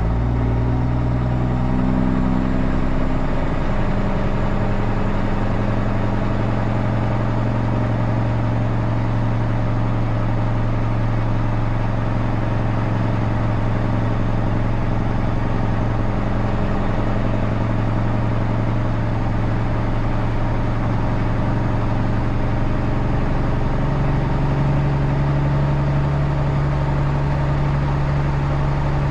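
Heavy truck's engine droning steadily at a constant speed; its pitch steps up about three-quarters of the way through.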